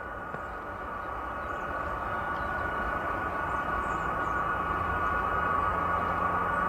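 Jet engines of a taxiing military transport aircraft: a steady roar with a high whine, growing gradually louder as it comes closer.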